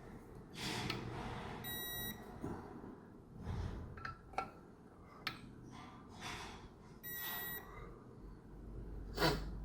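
Electronic torque wrench beeping twice, about five seconds apart, each a short steady high beep as it reaches the set torque on a clutch pressure plate bolt. Short clicks and tool handling noises come between the beeps.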